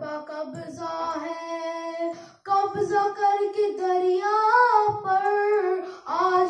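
A boy singing an Urdu manqabat solo, holding long drawn-out notes, with a short break for breath about two and a half seconds in.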